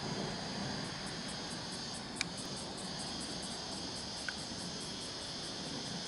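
An insect chirping in a high, rapid, even pulse, about four to five a second, over a steady background hiss, with a sharp click about two seconds in.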